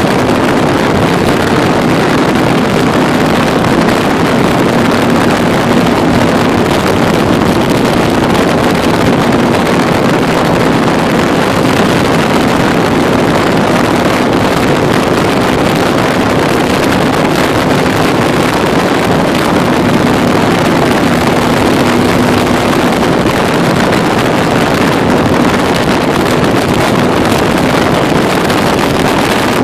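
Wind rushing over the microphone while riding a Can-Am Spyder three-wheeler, with its engine running at a steady cruise underneath.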